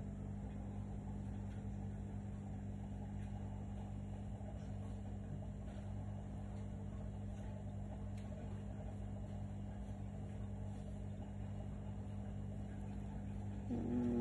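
A steady low hum with no change in level, with a few faint ticks; no bird calls are heard.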